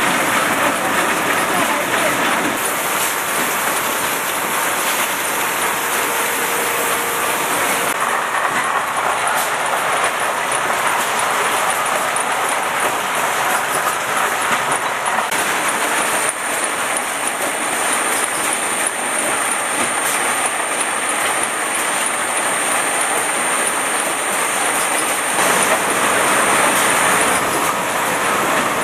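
Rotary bottle-labelling machine and its conveyor running at full production speed: a steady mechanical din with a rapid, continuous clatter of bottles and moving parts. A high steady whine joins about halfway through and stops shortly before the end.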